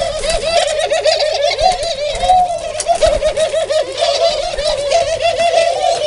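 Captive doves cooing without a break: a low, rolling coo that wavers several times a second, with more coos overlapping.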